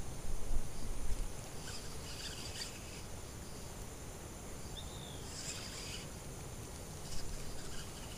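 Riverside outdoor ambience: insects buzzing in short high bursts, twice, over a steady low background noise, with a single short falling bird chirp about five seconds in.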